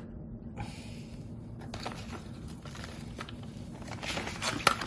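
Faint rustling and scattered small clicks of hands handling containers and substrate, growing busier and louder near the end, over a steady low hum.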